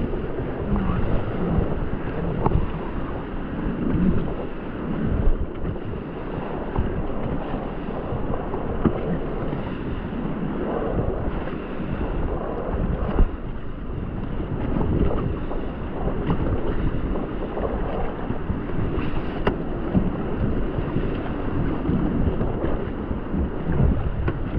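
Rushing whitewater of a large, fast river around a raft, with wind buffeting the microphone and a single sharp knock about halfway through.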